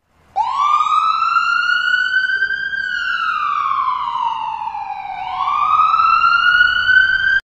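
A siren wailing: one slow rise in pitch, a slow fall, then a rise again, cut off abruptly at the end.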